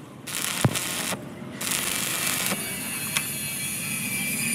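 Stick-welding arc crackling in short spells, broken by brief gaps where the arc goes out and is struck again, for about the first two and a half seconds. After that comes a steady background hum.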